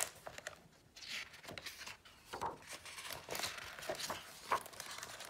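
Pages of a hardcover picture book being turned by hand: paper rustling and sliding in a string of short scrapes.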